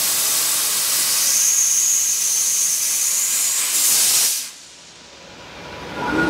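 Fiber laser cutter piercing through 18 mm brass plate: a steady loud hiss of assist gas jetting through the nozzle and kerf, with a thin high whistle over the middle of the cut. It cuts off sharply about four seconds in as the cut ends.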